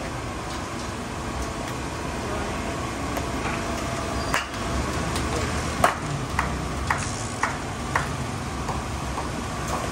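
Busy street ambience with steady traffic noise. In the second half, a run of sharp clinks, about two a second, from cooking utensils at a street-food stall.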